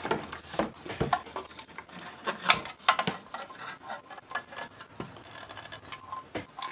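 Plastic case halves of a Commodore 128 power supply being handled and pulled apart: irregular plastic clicks, knocks and scraping, loudest about two and a half to three seconds in.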